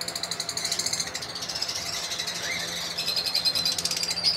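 Lovebirds chattering: a rapid, buzzy run of high chirps, many per second, with a few longer high notes near the end.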